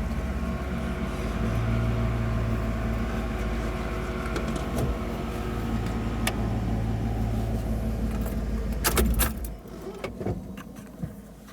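Engine of a 1988 Toyota 4x4 idling with a steady hum, switched off about nine seconds in, followed by a few sharp clicks and jingles of keys.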